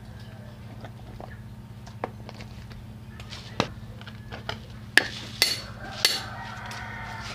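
Scattered light clicks and knocks of garlic cloves being handled and set down on a wooden chopping board, with three sharper clicks about five to six seconds in.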